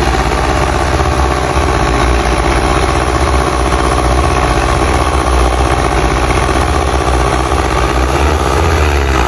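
Tractor diesel engine running steadily with a low rhythmic thumping, working hard and putting out black smoke; its pitch shifts briefly near the end.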